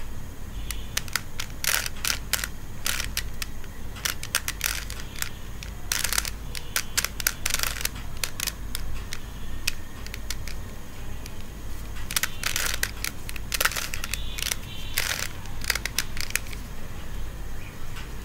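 A plastic 3x3 Rubik's cube being turned by hand: its layers click and clack in quick irregular bursts of several turns, with a longer pause about halfway.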